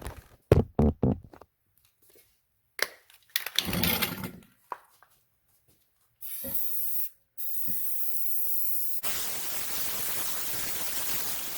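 Aerosol spray paint can spraying onto a Teflon-coated pan: a short hiss about six seconds in, then a long steady hiss from about seven and a half seconds. Before that there are a few sharp knocks and some handling noise.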